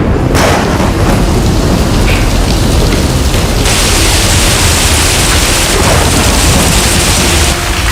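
Thunderstorm: steady heavy rain over a low rolling rumble of thunder. The rain's hiss grows sharper about halfway through and eases again near the end.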